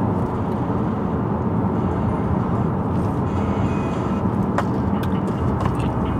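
Steady road and engine noise inside a car's cabin at highway speed, with a few light clicks in the second half.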